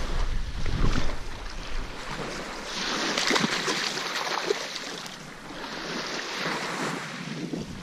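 Small waves washing onto a pebble beach, with wind on the microphone. The wash swells twice, about three and six seconds in.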